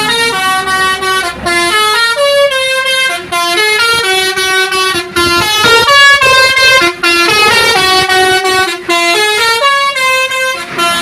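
Basuri 'telolet' musical bus horns playing a loud tune of short held notes that step up and down in pitch, in phrases of about two seconds with brief breaks between them; in places more than one note sounds at once.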